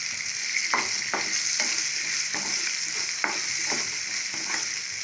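Onions, dried ribbonfish and freshly added curry leaves sizzling in hot oil in a nonstick pan, stirred with a wooden spatula that scrapes and knocks against the pan about twice a second over the steady hiss of frying.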